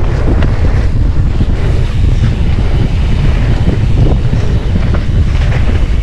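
Wind rushing over the camera's microphone as a mountain bike descends a dirt trail at speed, over a steady low rumble of the tyres rolling on dirt.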